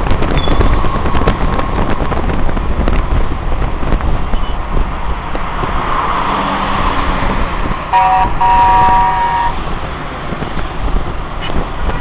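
Road and wind noise of a moving car heard from inside it, with surrounding traffic. A car horn honks about eight seconds in, a short toot then a longer one of about a second.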